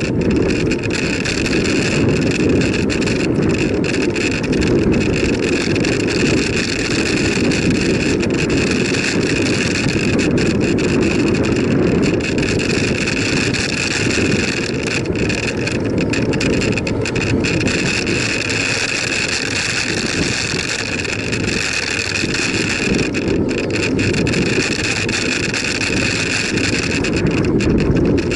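Steady wind noise on the microphone of a bike-mounted camera while cycling along a road, with tyre and road noise underneath.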